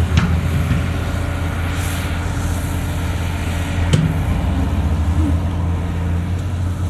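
Heavy diesel engine of earthmoving equipment running steadily with a deep rumble, with two sharp knocks, one at the start and one about four seconds in.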